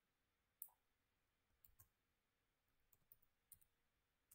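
Faint computer mouse and keyboard clicks: one sharper click just under a second in, then a few soft, scattered keystrokes as a word is typed.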